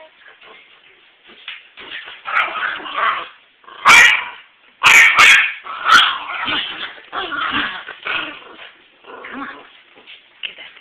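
A terrier yipping, whimpering and barking in excited play as it attacks a cat toy. Several loud sharp knocks come between about four and six seconds in.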